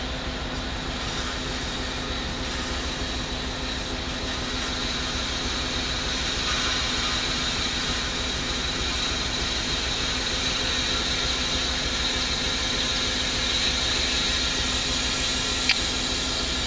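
Compressed air hissing steadily into a freight train's air brake pipe as the train is re-aired, growing slowly louder, with a steady low tone underneath. A single click comes near the end.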